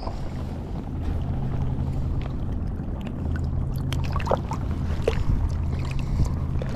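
Steady low hum of a boat engine running, with wind and sea noise on the action camera's microphone and a few light handling clicks about four and five seconds in.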